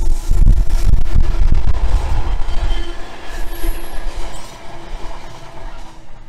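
Freightliner Class 66 diesel locomotive passing with a train of empty container flat wagons, the wagon wheels rumbling and squealing over the rails. The sound fades away as the end of the train rolls by near the end. Strong wind buffets the microphone in the first half.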